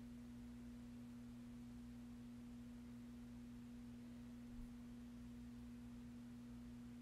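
Near silence with a faint, steady low hum, one unchanging tone held throughout.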